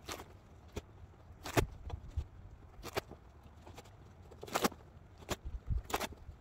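Footsteps crunching in snow, about eight irregular crunches, with the crinkle of plastic wood-pellet bags being lifted off a pile.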